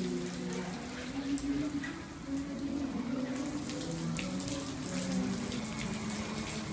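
AquaGun adjustable hose spray nozzle spraying water onto a car's paintwork, a steady rushing hiss.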